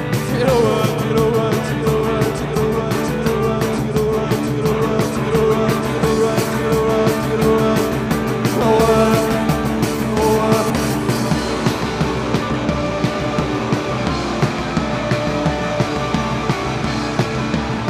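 Rock band playing live, with drums keeping a steady beat under sustained instrument tones. The sharp high hits thin out about two-thirds of the way through while the held tones carry on.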